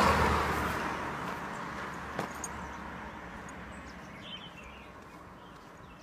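A vehicle passing on the road, loudest at the start and fading away over several seconds, with a single sharp click about two seconds in.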